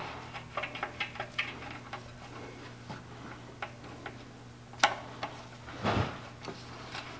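Light clicks and taps of hand tools and metal fittings being worked loose on an air compressor as a hose is taken off, with a sharp click about five seconds in and a brief louder scrape or knock about a second later.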